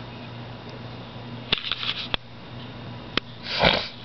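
An alligator moving and feeding in its water tank: a few sharp clicks and some brief splashy noise, then a short rushing burst about three and a half seconds in, the loudest sound, over a steady low hum.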